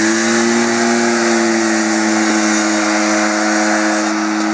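Two Honda off-road buggies, a Pilot and an Odyssey, racing flat out, their single-cylinder engines held at a steady high-revving note as they pull away.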